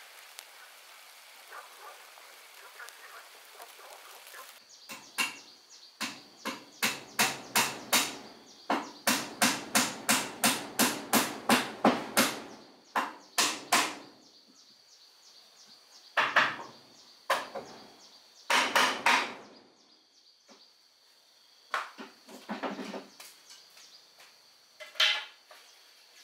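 Hammer blows on wood in quick runs of about two strikes a second, broken by short pauses, as nails are driven into wooden wall boards.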